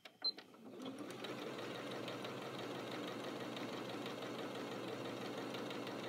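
Janome Skyline 6 computerized sewing machine giving a short high beep as it is started, then stitching steadily at an even speed, with a fast, regular needle rhythm.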